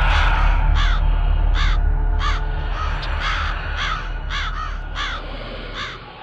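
Crow cawing over and over, about ten caws in quick succession, laid over a low drone that fades toward the end: the sound design of an animated logo intro.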